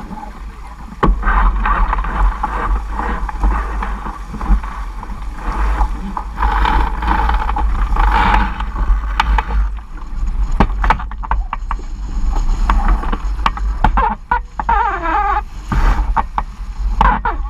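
Strong wind buffeting the microphone over water rushing and splashing around a sailing dinghy moving fast through choppy water, with repeated short slaps of water.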